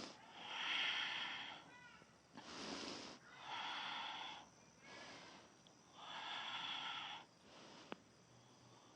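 Slow, deep, audible breathing of a woman holding a yoga pose: about four long breaths, in and out, each lasting about a second, with a small click near the end.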